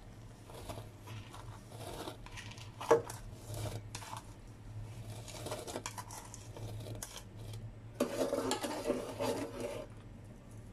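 Spoon scraping and tapping brown sugar out of a ceramic bowl into a steel pot of coconut milk, with a sharp knock about three seconds in and a longer bout of scraping near the end. A steady low hum runs underneath.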